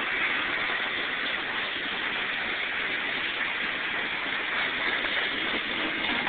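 Freight cars of a passing Norfolk Southern train rolling by close on the track: the steady rushing noise of steel wheels on rails.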